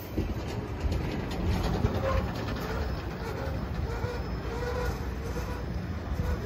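Freight train of petroleum tank cars rolling past, a steady low rumble of wheels on rail.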